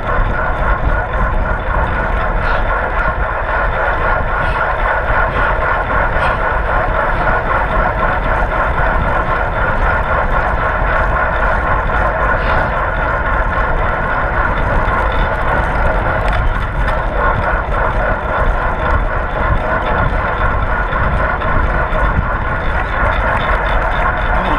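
Steady rush of wind and road noise on a GoPro camera carried on a bicycle ridden at race speed.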